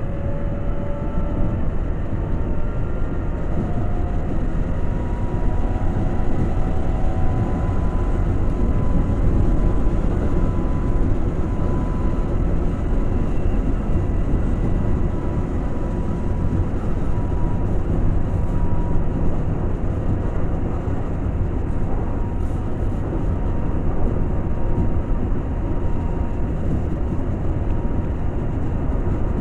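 Keihan 2200 series electric train running at speed between stations: a steady rumble of wheels on the rails, with a faint steady whine through most of it and a few brief gliding tones in the first seconds.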